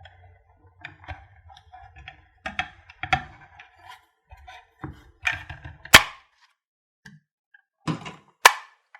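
A screwdriver prying and jabbing at a plastic LED T-bulb housing to free its base: scattered scrapes and small knocks, then two sharp snaps, about six seconds in and near the end.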